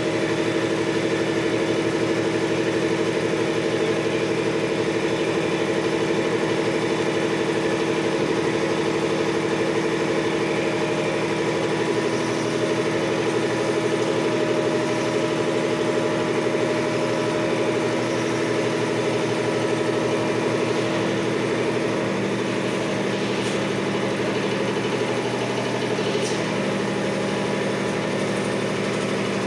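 Maruti 7.5 hp air compressor running steadily, its electric motor driving the V-type piston pump with a fast, even pulsing hum. The tone shifts slightly and the level dips a little about two-thirds of the way through.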